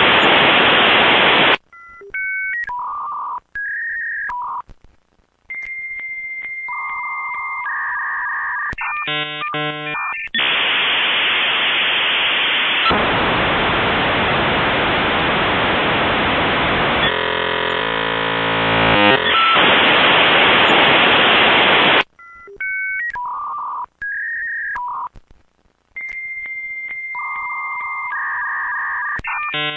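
Dial-up modem handshake over a phone line: a series of steady beeps and paired tones, a brief warbling chatter, then a long stretch of loud hissing static as the modems negotiate the connection. The handshake cycle starts again about 22 seconds in.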